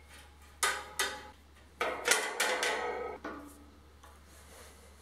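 Metal wrenches clinking and knocking against brass valve fittings on an air compressor tank: two sharp knocks, then a ringing clatter of several strikes about two seconds in.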